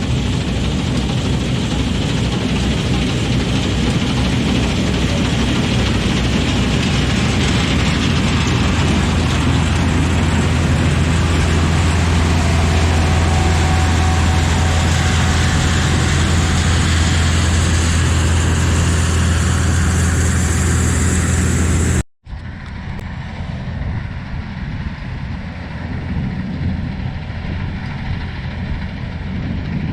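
Sampo 680 combine harvester running while harvesting oats: a loud, steady engine hum under a wide hiss of machinery. About two-thirds of the way through, the sound breaks off for a moment and comes back quieter and duller.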